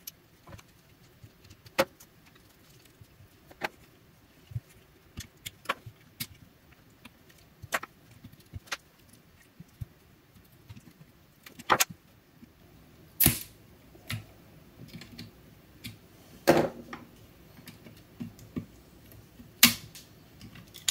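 Irregular sharp metallic clicks and clinks from a screwdriver and pry tool working the nickel strips loose from the cells of a DeWalt FlexVolt lithium-ion battery pack. The louder snaps come in the second half.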